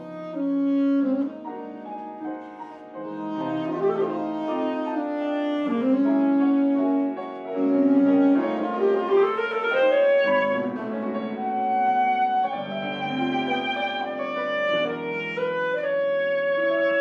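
Alto saxophone playing a melody over piano accompaniment, with long held notes and quick sweeping runs about four seconds and nine seconds in.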